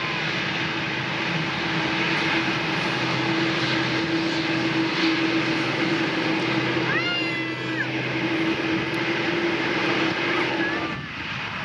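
Aircraft engines running close by: a steady roar with a constant hum underneath, easing off near the end. About seven seconds in, a short high-pitched call rises and falls over the engine noise.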